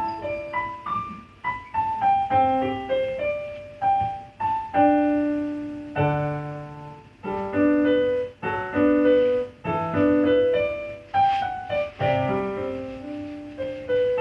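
Keyboard played with a piano sound: a melody of struck notes, each dying away, over lower chords and bass notes, in phrases with brief gaps between them.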